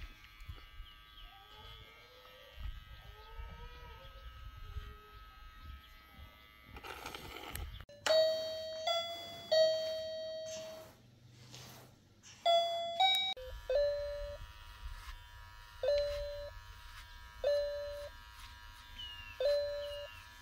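Electric hair clippers buzzing steadily under background music. About eight seconds in, chiming bell-like notes come in and repeat every second or two.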